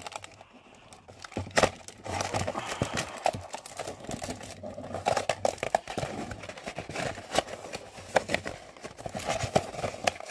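Packaging crinkling and rustling while a box is unpacked by hand, with many small clicks and taps. It starts about a second and a half in.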